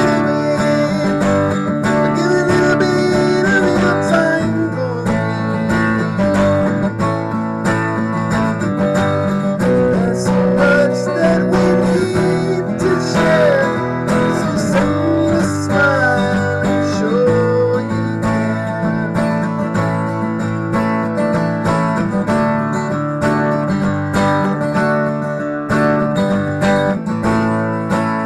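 Acoustic guitar strummed steadily as song accompaniment, with a melody line gliding over the chords now and then.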